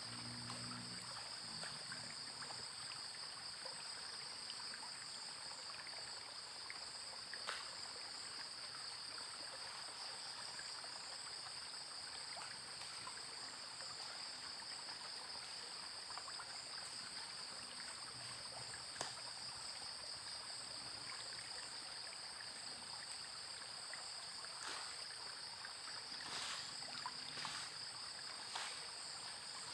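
Insects droning steadily at a high pitch over the even rush of running water, with a few faint knocks late on.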